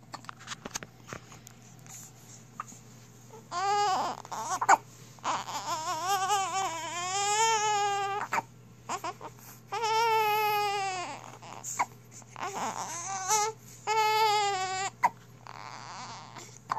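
A one-week-old newborn baby crying: a run of wavering wails, each one to three seconds long, with short gaps and small rustles and clicks between them.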